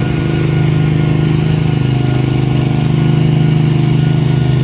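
Engine of asphalt-paving machinery running steadily at a constant speed, a loud, even drone.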